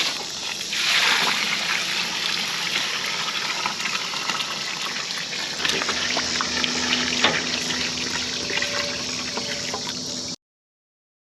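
Water pouring into a container: a steady splashing rush with small clicks and spatters.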